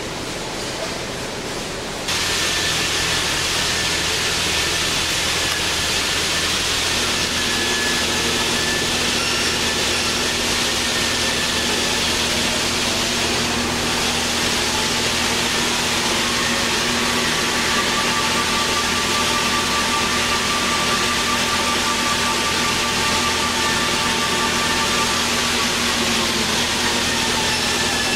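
Baileigh PL-1022VS bench-top metal lathe running with its chuck spinning. Its motor whine rises in pitch as the variable-speed knob turns the spindle speed up, holds steady, then falls near the end as the speed is turned back down.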